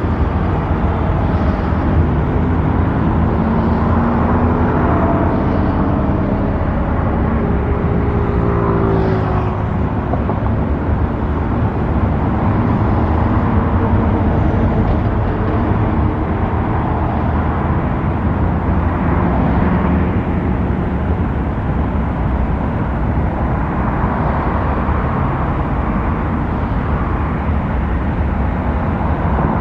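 Single PT6 turboprop engine of a Cessna 208B Grand Caravan EX running, loud and steady with a heavy low rumble; its tones glide in pitch during the first ten seconds or so.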